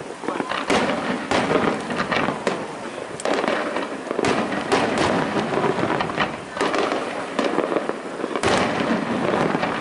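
Aerial fireworks shells bursting in quick succession: a dense, continuous string of bangs, with several louder reports standing out from the rest.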